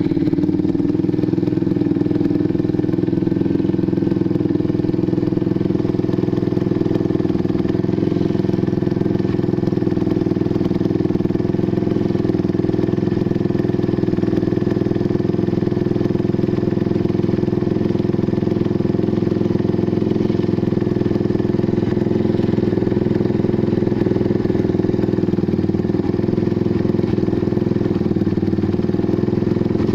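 Kawasaki Barako 175 Fi motorcycle's single-cylinder engine, breathing through an aftermarket SC Project muffler, idling steadily just after a cold start.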